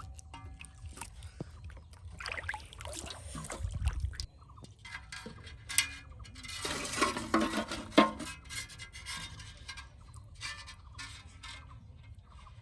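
Irregular rubbing and scraping noises in bursts, loudest around the middle, with a sharp click near the end of the loudest burst.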